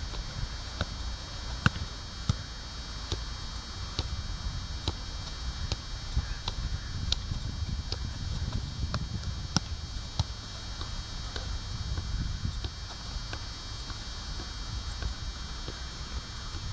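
Soccer ball being struck repeatedly with the foot: sharp, irregular knocks about one or two a second, over a steady low rumble.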